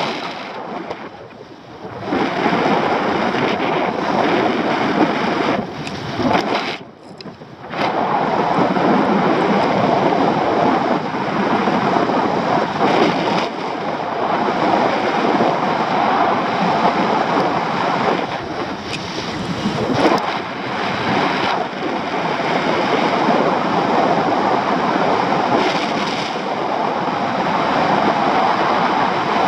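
Wind rushing over the microphone of a camera on a paraglider in flight: a loud, uneven rush of wind noise that dips briefly about a second in and again around seven seconds in.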